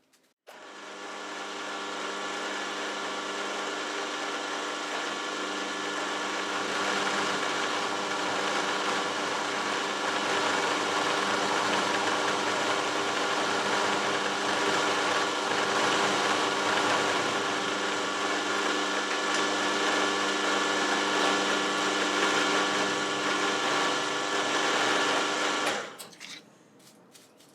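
Warco Super Major milling machine running with a 12 mm carbide cutter milling a flat on a mild steel bar: a steady machine whine over cutting noise. It starts about half a second in and stops abruptly near the end.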